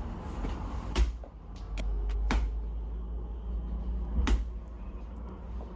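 Sharp knocks: three loud ones, about a second in, near two and a half seconds and just past four seconds, with a few fainter taps between, over a low steady hum.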